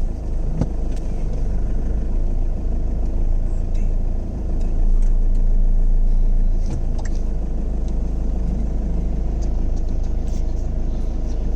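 Safari vehicle's engine running steadily at low revs: a deep, even hum, with a few faint clicks over it.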